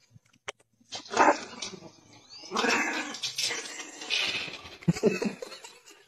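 Small dog barking and growling in repeated bursts, starting about a second in.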